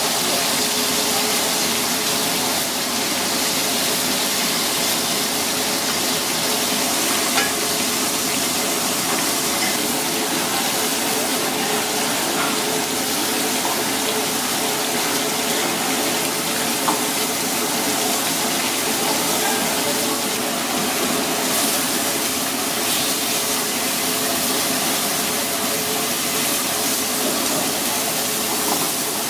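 Parrotfish fillets sizzling steadily in hot oil in a frying pan, with two light ticks about a third and about halfway through.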